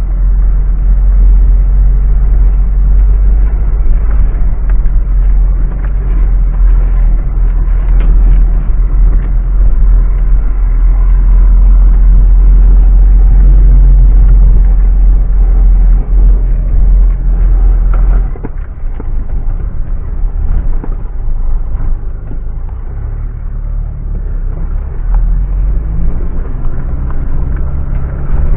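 Mitsubishi Pajero driving off-road: a steady heavy rumble of the engine and running gear, with occasional short knocks. The deepest part of the rumble eases off about two-thirds of the way through.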